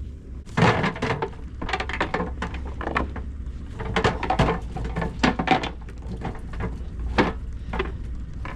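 Irregular knocks and thumps on the boat, in quick runs with short gaps, over a steady low hum.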